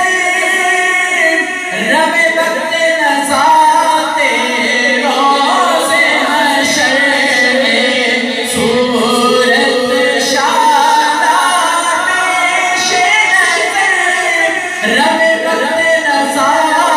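A man's voice singing a naat, an unaccompanied devotional Islamic song, into a handheld microphone, with long held notes that waver up and down.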